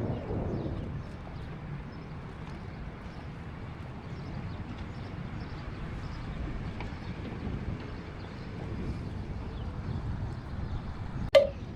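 Low, steady outdoor rumble, a little louder at the start, with one sharp ringing ding like a bell or chime near the end.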